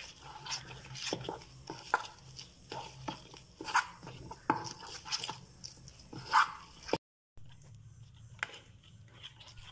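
Metal spoon stirring and scraping in a stainless-steel bowl, mixing flour and chilli powder into a thick batter, with irregular clicks, scrapes and a few ringing clinks against the bowl.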